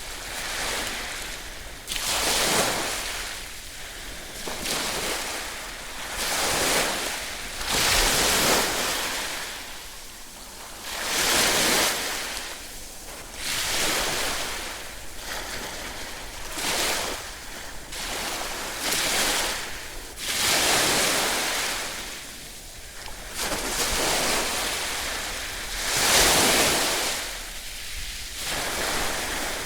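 Ocean surf: waves breaking and washing up the shore one after another, each surge rising and falling away every two to three seconds, with the biggest wave near the end.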